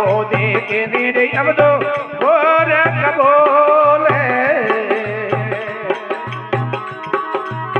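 Rajasthani desi bhajan: a man sings a long, wavering devotional phrase over a harmonium's held chords. A drum keeps a beat of paired low strokes about once a second, with hand percussion clicking in time.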